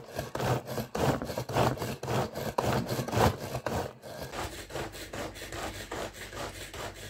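Manual food chopper worked in repeated strokes, its blades chopping cabbage and onion inside the container, about three strokes a second. About four seconds in, the strokes become quieter and quicker.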